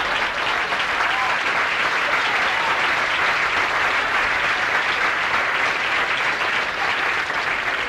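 Large stand-up comedy audience applauding and laughing at a punchline, a steady, loud wall of clapping.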